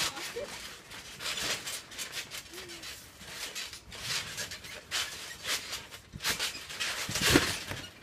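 Two boys breathing hard and scuffling as they wrestle on a trampoline, with short grunts and the rustle of bodies and feet on the mat. A louder thump comes near the end.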